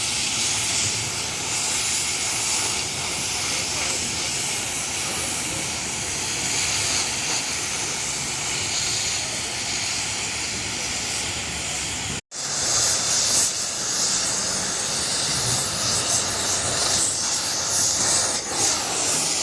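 Oxy-fuel gas cutting torch hissing steadily as it cuts through steel. The hiss breaks off for an instant about twelve seconds in, then resumes a little louder.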